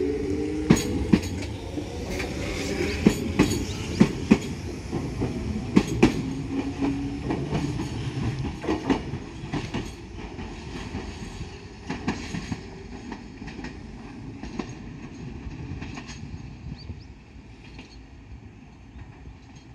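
Enshu Railway 1000-series electric train 1006F pulling away: a low motor tone rising in pitch at the start, then wheels clacking over rail joints and points in irregular clusters. The sound fades steadily as the train moves off.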